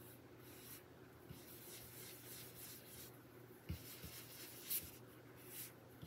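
Round ink-blending brush swirled over cardstock: faint, soft brushing and rubbing strokes on paper, with two light knocks a little past the middle.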